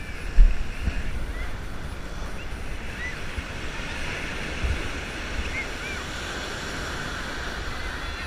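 Ocean surf washing steadily onto the beach, with wind buffeting the microphone in low rumbling gusts that are strongest in the first second.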